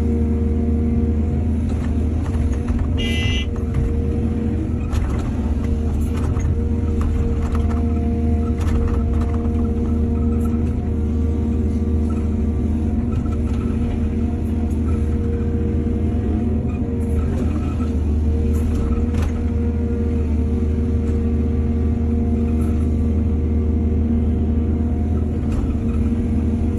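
Excavator's diesel engine running steadily under load, with scattered knocks and clatter as it works. A brief high tone sounds about three seconds in.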